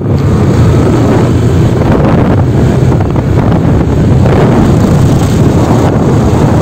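Heavy wind noise on the microphone from riding a motorcycle, with the bike's engine and road noise running steadily underneath.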